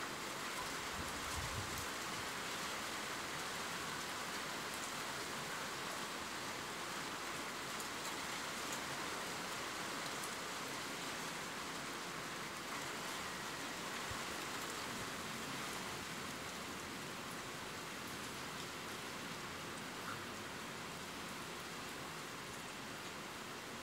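Steady rainfall: an even hiss of rain with faint scattered drop ticks.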